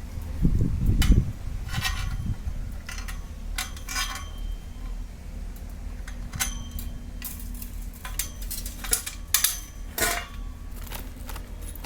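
Small metal parts and tools clinking and tapping, about a dozen sharp ringing clicks spread irregularly, typical of handling nuts, washers and spanners while bolting crimped ring lugs onto cable ends. A low rumble about a second in, over a steady low hum.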